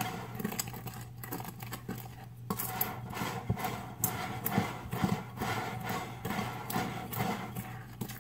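Metal utensil stirring dry flour mix in a large glass mixing bowl, scraping and clinking irregularly against the glass.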